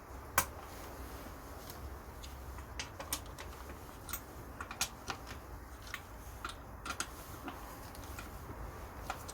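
Irregular sharp metallic clicks and ticks of an Allen key working on the luggage rack's bolts as they are tightened, with one louder click about half a second in. A faint steady low hum lies under them.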